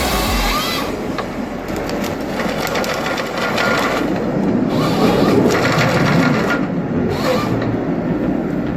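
Forestry machinery working timber: a dense, rattling machine noise that swells and eases several times.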